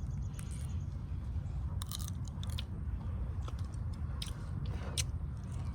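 Close-up eating of a seafood boil: biting, chewing and crunching, with a few short sharp cracks scattered through, over a steady low rumble.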